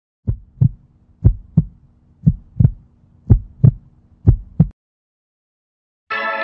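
Heartbeat sound effect: five double thumps, lub-dub, about one a second, over a faint hum, then it stops. Music starts near the end.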